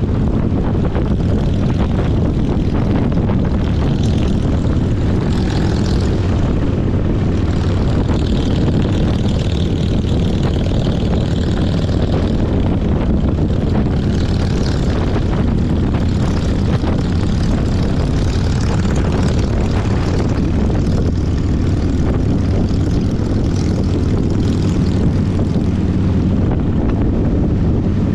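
Motorcycle engine droning steadily at cruising speed, with heavy wind noise on the microphone.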